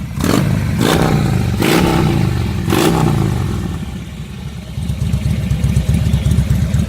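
Harley-Davidson Fat Boy V-twin breathing through a 2-into-1 competition full exhaust, blipped four times in quick succession and then dropping back to idle with plainly separate exhaust pulses.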